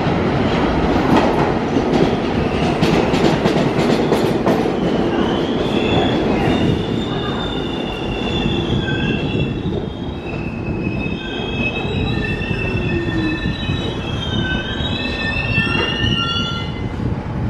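New York City subway train pulling into a station. Its wheels click over the rail joints for the first few seconds, then set up a high squeal from about five seconds in as the train slows to a stop alongside the platform.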